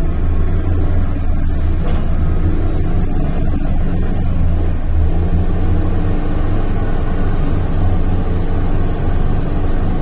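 Large wheel loader's diesel engine running steadily with a deep, low drone as the machine manoeuvres.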